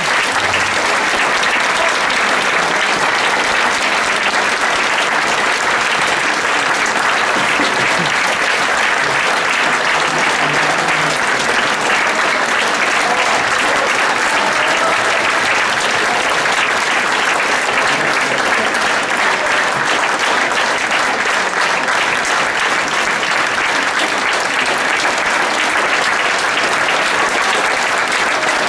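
Audience applauding, a dense and steady clapping that holds at one loud level.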